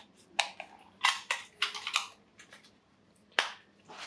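Handling noise: a string of short plastic clicks and brief rustles from a small remote control and the packing materials in a cardboard box, with one sharper click about three and a half seconds in.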